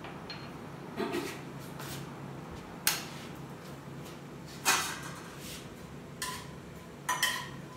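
Four or five sharp metal clanks of a steel spatula striking a stainless-steel pan while spices are stirred in hot oil for a tempering, over a steady low hum.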